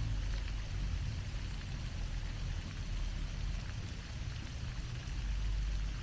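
Pond fountain's vertical water jet falling back onto the pond, a steady splashing hiss, over a steady low rumble.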